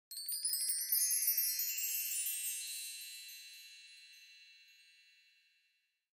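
A shimmering chime sound effect: a quick cascade of high, bell-like tinkling notes that then ring on and fade away slowly over about five seconds.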